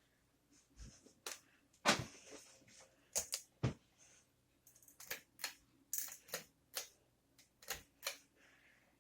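Concord ceiling fan running with a bad wobble, giving a string of sharp, irregular clicks and knocks, some in quick pairs.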